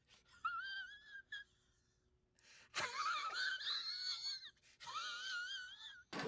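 A high-pitched wavering wail, voice-like, in three drawn-out phrases, the middle one starting with a sharp upward swoop and the loudest; loud music cuts in at the very end.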